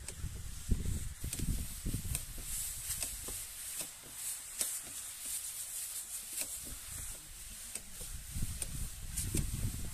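Wind buffeting the microphone in uneven low rumbles over a faint, steady high hiss, with scattered light clicks.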